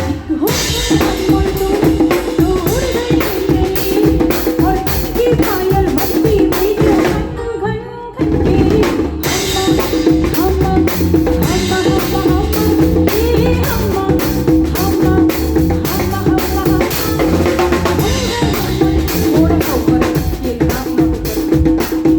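Live band music with a drum kit and percussion playing a steady beat under a held keyboard-like tone and melody, during a sound check. The music thins out briefly about seven seconds in, then comes back in full with a hit about a second later.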